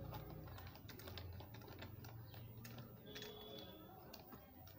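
Faint, irregular small clicks and taps of a screwdriver and wire being worked into the terminal of a plastic switchboard switch.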